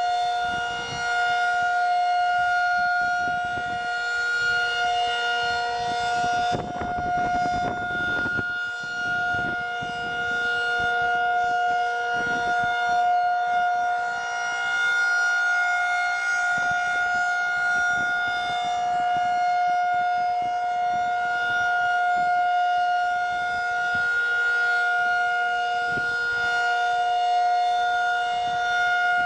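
Federal Signal 2001-SRN DC-powered rotating civil defense siren sounding the steady Alert signal, holding one unchanging pitch while its loudness swells and sinks slightly. A brief rush of noise comes through about seven seconds in.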